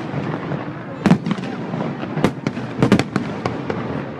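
Fireworks going off: a string of sharp bangs, several in quick succession around the middle, over a steady background noise.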